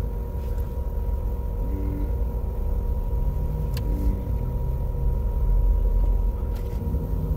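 Steady low rumble with a constant faint hum, typical of a vehicle engine running nearby.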